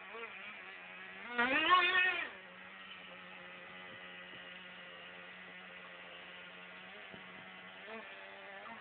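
Small gas-powered engine of a radio-controlled car idling with a steady buzz. It revs up and back down once about a second and a half in, which is the loudest moment.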